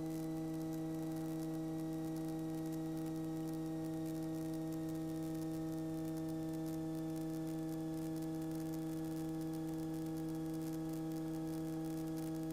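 Light training aircraft's piston engine and propeller at full power in a go-around climb, heard as a steady, muffled hum with several pitched tones, as picked up through the cockpit headset intercom.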